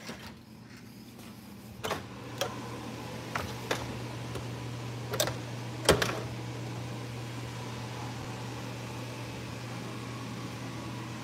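A metal door is worked open by its knob, with several sharp clicks and knocks; the loudest comes about six seconds in. A steady low machine hum sets in about two seconds in and carries on under them.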